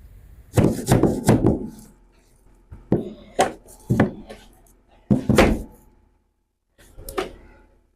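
A series of knocks and thunks on wood, in several short clusters, as things are handled and moved in a boat's cabin.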